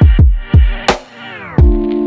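Electronic music with deep kick-drum hits about twice a second, a crash about a second in, a falling pitch sweep, and a new held synth chord starting near the end.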